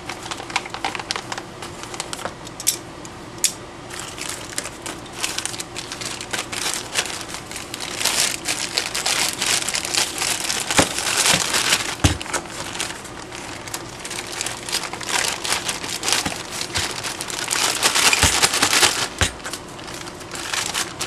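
Plastic bags and packaging crinkling and rustling as hardware parts are packed back into their box, with scattered clicks and a few light knocks.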